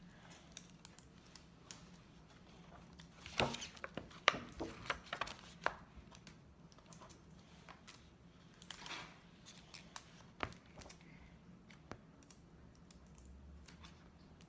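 Quiet handling of paper and tape on a tabletop: scattered rustles, crinkles and light taps, busiest from about three to six seconds in and again around nine to ten seconds, over a faint steady hum.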